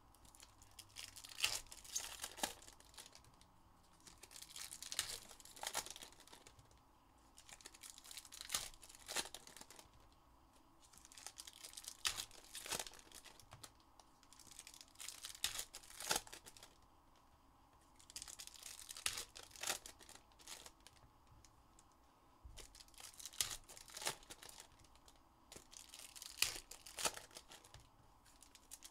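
Trading-card pack wrappers being torn open and crinkled one after another, with crackling and sharp clicks coming in bursts every few seconds.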